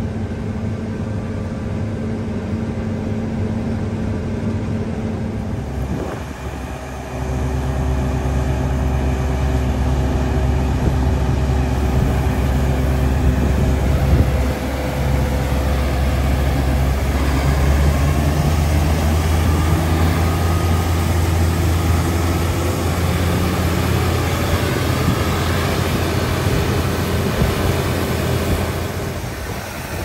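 Diesel engines of a New Holland combine harvester and a John Deere tractor with a grain cart running steadily. About seven seconds in, the engine sound grows louder and deeper.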